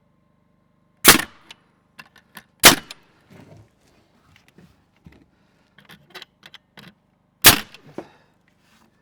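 Nails being driven into a wooden board: three loud, sharp bangs, about a second in, a second and a half later, and again near the end, with lighter knocks and clicks of handling in between.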